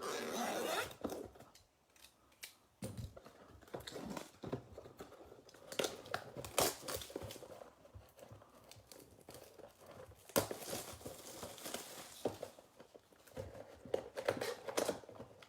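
Plastic shrink-wrap being torn off and crinkled as a trading-card Mega box is opened and its packs pulled out, in irregular rustles and sharp crackles.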